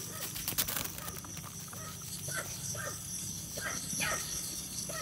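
Night insects chirring steadily, with a landed fish thrashing in grass, a cluster of sharp slaps and rustles under a second in. A few short faint chirps sound through the middle.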